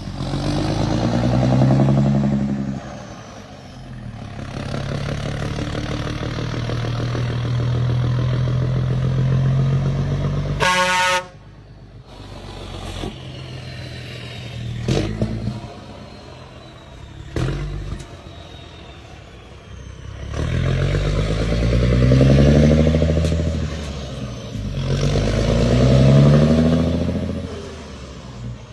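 Mercedes-Benz truck's V6 diesel engine revving hard and rumbling loudly: repeated rev swells, a long high-rev hold that ends in a short horn blast, then idling before two more revs near the end.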